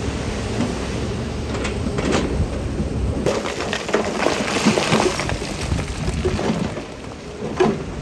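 Heavy earthmoving machine's diesel engine running under load while loose stone clatters and tumbles, with a dense rush of sliding rock about halfway through and scattered knocks of stone on stone.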